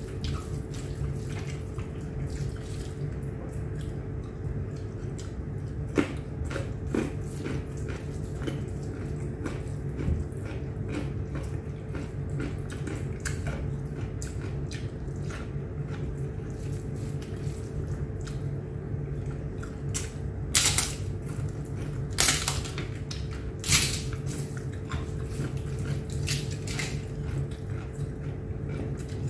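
Eating with the hand: fingers mixing and scooping chicken biryani rice on a plate, with moist chewing and mouth smacks. There are many small clicks throughout, and three sharper ones about three quarters of the way through.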